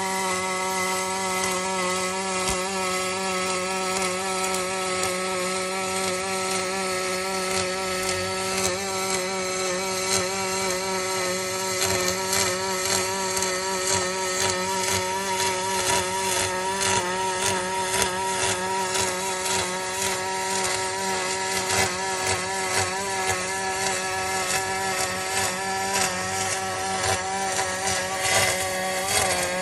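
Aluminium MIG welding arc burning continuously: a steady buzzing hum with crackling and spitting over it. The crackle grows denser about nine seconds in.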